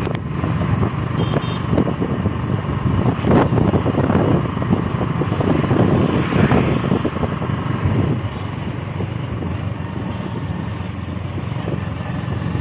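Motorcycle riding along a road, heard from on the bike: engine running with a steady rush of wind noise.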